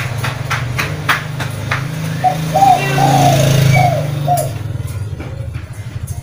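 A small engine running steadily, growing louder toward the middle and then easing off. About two seconds in, five short arched cooing notes are heard over it. There are sharp ticks in the first two seconds.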